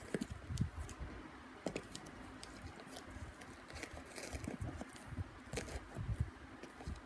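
Homemade cardboard washing machine being handled: scattered light clicks and rustles of cardboard, with a few soft low thumps.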